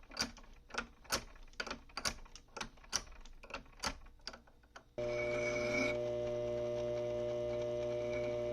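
Irregular sharp metallic clicks and taps from hand work on metal parts. About five seconds in, an abrupt cut to the steady, even hum-whine of a small benchtop machine tool's motor running.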